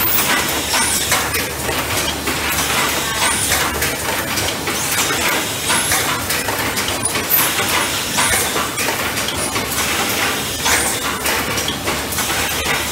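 Katahisa-do Auto Prester cup filling and sealing machine running: a continuous clatter of clicks and clinks, with short sharp hisses every second or two.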